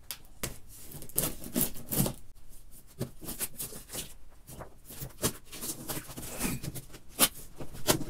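Packing tape on a cardboard box being slit and torn open, with irregular scraping, crackling and rustling of tape and cardboard as the flaps are pulled back, and a few sharp clicks.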